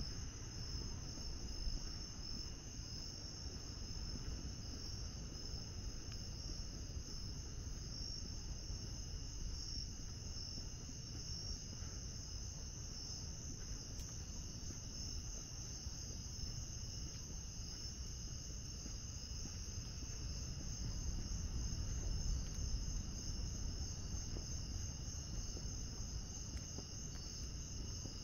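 Steady chorus of night insects, mostly crickets, a continuous high chirring at two pitches, over a low rumble.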